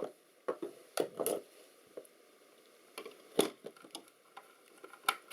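Scattered light clicks and taps of a screwdriver working the captive screws and handling the metal housing of a small electronic camera unit being taken apart, with the sharpest click about three and a half seconds in.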